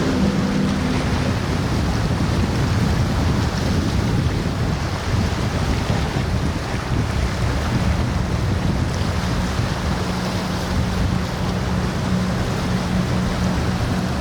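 Vanquish motor yacht's engines running as it passes, under a steady wash of water and wind noise on the microphone. A low engine hum fades in the first couple of seconds and returns steadily from about ten seconds in.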